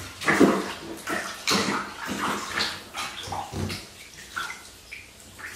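Bath water splashing and sloshing in a bathtub as a toddler is washed, in a series of short irregular bursts, mixed with the toddler's brief vocal sounds.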